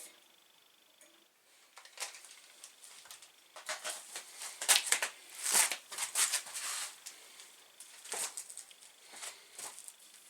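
Irregular clicks, scrapes and light clatter of objects being handled, busiest and loudest from about four to seven seconds in.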